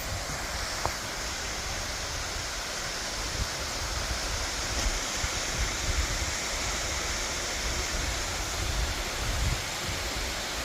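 Waterfall rushing: a steady wash of falling water.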